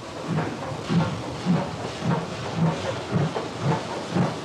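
Large steam locomotive working slowly past, its exhaust chuffing in an even beat about twice a second over a steady hiss of steam.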